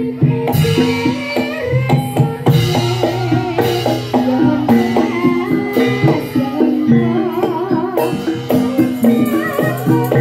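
Javanese jaranan dance music played live: hand drums beating steadily under a wavering, bending melody line.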